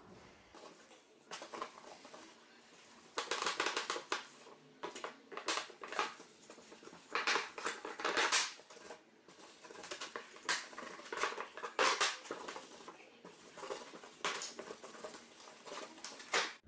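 A cloth rag rubbed by hand over ash wood slats and frame, wiping on an oil finish, in irregular back-and-forth rubbing strokes.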